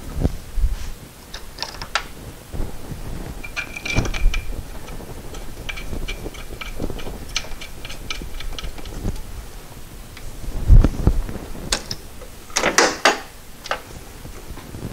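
Aluminium water pump housing being worked by hand into place on a VW Cabriolet engine: scattered clicks, light metal clinks and scrapes. A heavy knock about eleven seconds in is the loudest sound, and a quick cluster of clicks follows shortly after.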